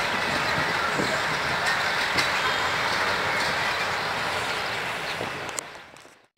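Passenger train rolling away over the rails: a steady rush of wheel-and-rail noise that fades out near the end.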